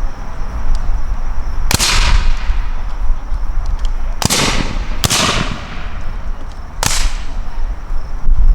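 .58-calibre muzzle-loading rifle-muskets fired with powder only, no ball, in a timed rapid-fire drill. There are four single shots, unevenly spaced over about five seconds, each a sharp crack that rings off in a short echo.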